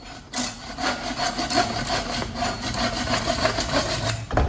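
Bow saw cutting through a wooden axe handle with fast back-and-forth rasping strokes, ending in a heavier knock near the end.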